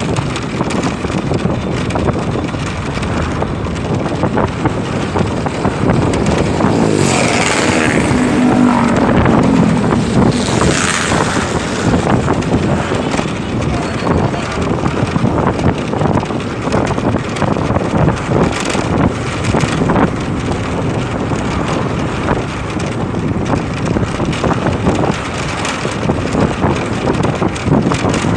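Motorcycle riding along a road: steady engine and road noise with wind rushing over the microphone, swelling louder about seven to eleven seconds in.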